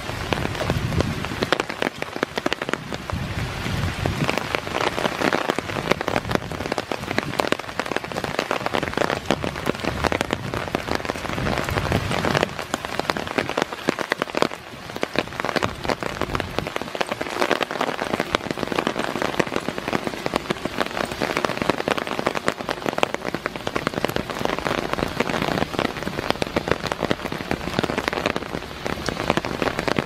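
Steady rain falling on a wooden deck walkway and the surrounding forest leaves, a dense patter of many close drops.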